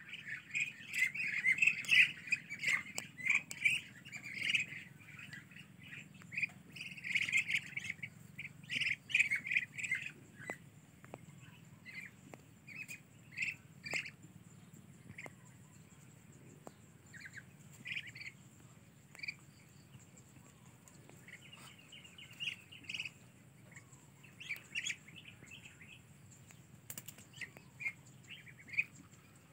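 A flock of young Muscovy ducks, hungry for food, peeping and calling in many short, high calls. The calling is densest over the first ten seconds and then becomes sparser.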